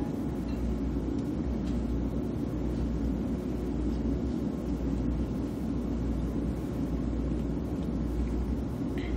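Steady low rumble of a KTX-Sancheon high-speed train running, heard from inside the passenger cabin.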